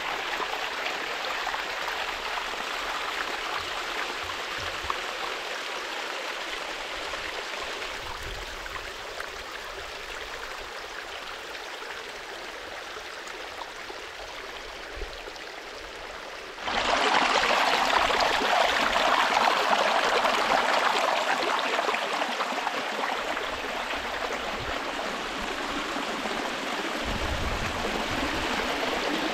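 Water of a shallow rocky creek running and splashing over small cascades, a steady rush. A little over halfway through it becomes suddenly louder and closer.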